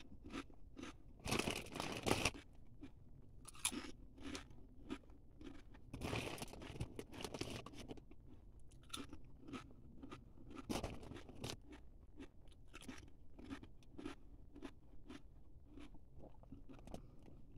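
A person chewing crunchy ridged potato chips with the mouth close to the microphone: a run of irregular crunches, with a few louder bites spread through it.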